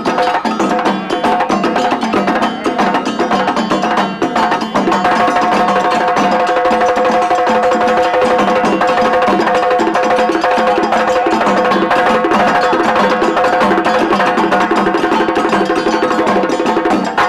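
West African drum ensemble of djembes and dunun bass drums playing a fast, dense interlocking rhythm. A steady ringing tone joins in about five seconds in.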